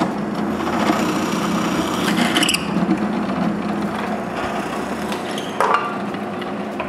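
Power tool running steadily under load, cutting into wood, with a few short sharper accents.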